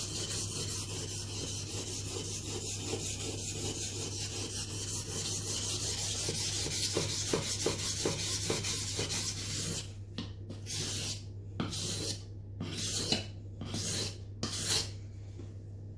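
Mora Bushcraft Black's scandi-ground blade being sharpened on a wet whetstone: rapid back-and-forth scraping strokes, then from about ten seconds in several slower, separate strokes.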